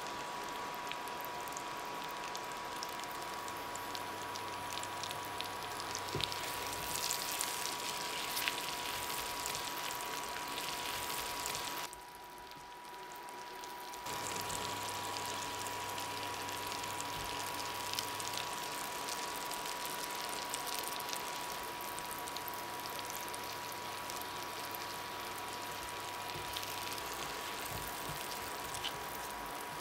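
Butter and oil sizzling and bubbling around potatoes in a frying pan, an even hiss with scattered small crackles. It goes quieter for about two seconds about twelve seconds in.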